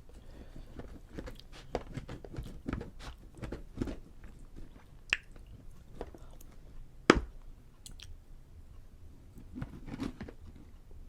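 Close-up chewing of prime rib, with irregular wet mouth clicks and smacks and a sharp click about seven seconds in.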